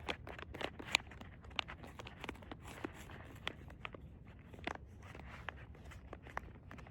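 Plastic food pouch crinkling and clicking as its zip seal is pressed shut, a run of irregular small crackles.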